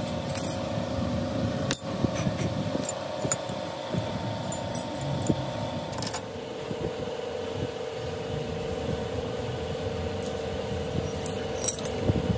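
Workshop machinery running with a steady hum that drops slightly in pitch about six seconds in, with scattered clicks and knocks.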